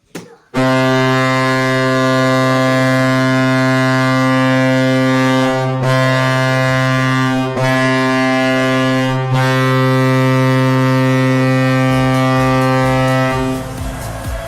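Hockey goal horn playing through a speaker: one long, loud blast with three brief breaks, signalling a goal. It gives way to music near the end.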